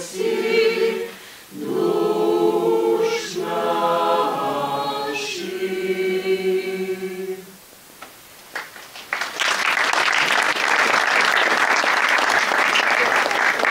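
Mixed choir singing a cappella, ending its piece on steady held chords about halfway through. After a short pause, audience applause breaks out and continues.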